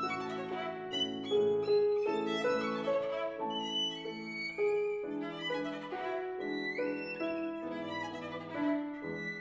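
Violin and Steinway grand piano playing a Romantic classical duo passage, with a quick rising slide on the violin about seven seconds in.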